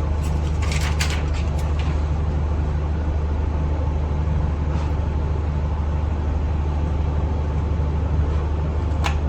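A steady low hum with a faint high whine above it. A few light clicks and taps come in the first two seconds, and one more near the end.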